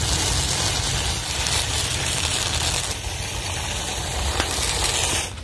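Raw red rice grains pouring in a steady stream from a plastic bag onto a heap of rice in a plate: a continuous dense pattering hiss of grains that cuts off near the end.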